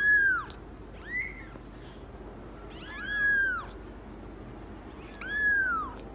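A very young kitten mewing four times: high, thin calls that each rise and then fall in pitch. The second is short, and the third and fourth are longer.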